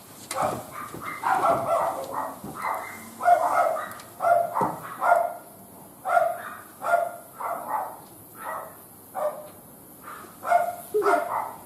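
A dog barking repeatedly, short barks about once a second.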